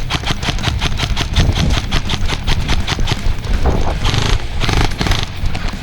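Airsoft guns firing suppressing fire: a steady string of rapid shots, about eight a second, then two short full-auto bursts about four and five seconds in.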